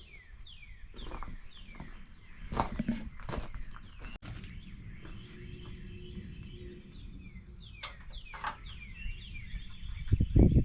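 Small birds chirping repeatedly in short falling notes, with footsteps and handling noises, and a heavy thump near the end.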